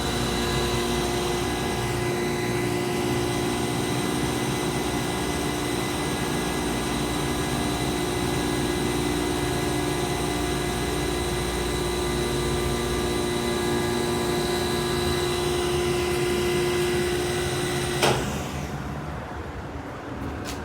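Hydraulic elevator pump unit running steadily with a hum and a whine as it pushes the car up. It cuts off suddenly with a click about 18 seconds in, leaving a quieter hum.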